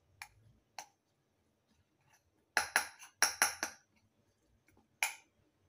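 A small metal spoon clinking against a porcelain bowl while stirring minced garlic into fermented black beans: two light taps, then a quick run of clinks about two and a half seconds in, and one more near the end.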